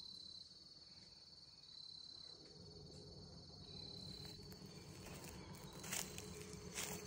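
Faint insect trill from the field: a thin, steady high tone that comes and goes in long stretches, with two short clicks or rustles near the end.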